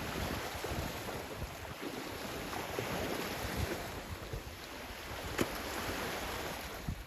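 Steady wash of sea waves with wind noise on the microphone, broken by a single sharp click about five seconds in.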